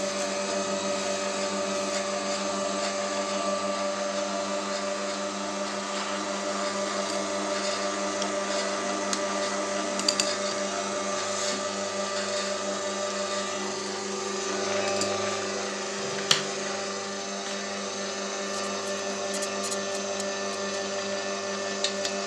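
Small electric screw oil press running steadily while pressing sesame seeds, a constant motor-and-screw hum. There are a couple of sharp clicks, the louder about two-thirds of the way through, and a few light ticks near the end.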